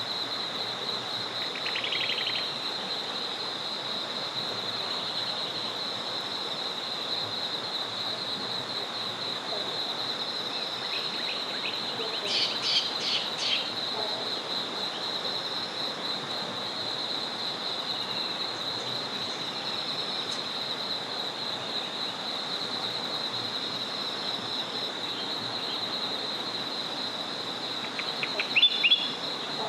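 Dusk forest soundscape: a small river flowing steadily under a constant high-pitched pulsing trill. Birds chirp in short bursts about two seconds in, again midway, and loudest just before the end.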